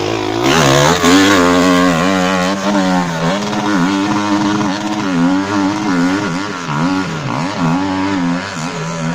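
Dirt bike engine revving hard under load on a steep hill climb, its pitch rising and falling over and over as the throttle is worked.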